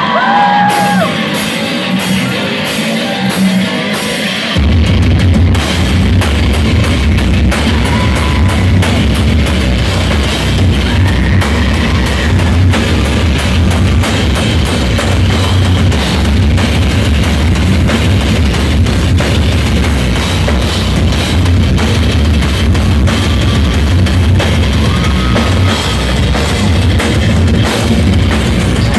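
Heavy metal band playing live through a PA, heard from within the crowd: distorted electric guitars and fast drumming. The full band with heavy bass and drums comes in about four and a half seconds in.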